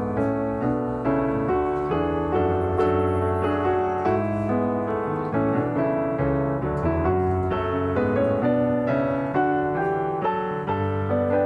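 Background music: a gentle piano melody over a bass line.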